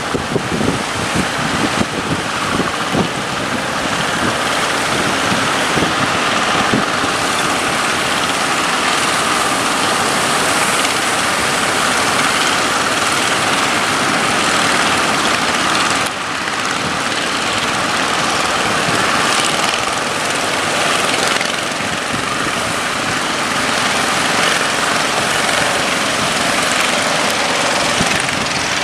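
A boat's engine running steadily under a dense rush of wind and water noise, with a brief break about sixteen seconds in.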